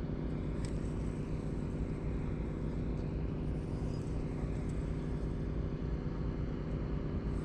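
Steady low engine drone with an even hum that does not change.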